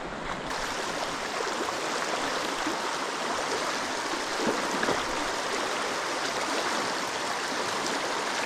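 Mountain stream rushing over rocks in a steady, even flow, the rush filling out about half a second in.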